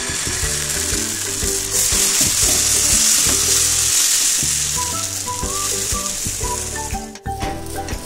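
Dosa batter sizzling on a hot tawa as it is poured and spread thin, the hiss swelling about a second and a half in and easing near the end. Background music plays underneath.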